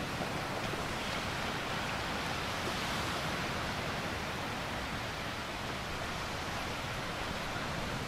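Small waves breaking and washing onto a sandy beach: a steady rush of surf with no distinct crashes.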